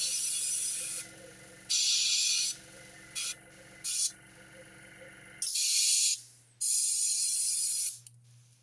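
Airbrush spraying paint in short on-off bursts of hiss as the trigger is worked: two longer bursts, two quick puffs, then two more longer bursts. A steady low hum runs underneath and stops about two-thirds of the way through.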